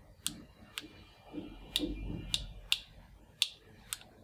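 Small plastic toy pistol clicking as it is handled in the hands: seven sharp, irregularly spaced clicks, some with a brief ringing, over faint handling rustle.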